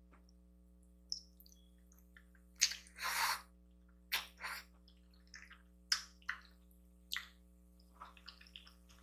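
Close-up eating sounds of spaghetti: wet mouth smacks and clicks scattered through, with one longer slurp about three seconds in.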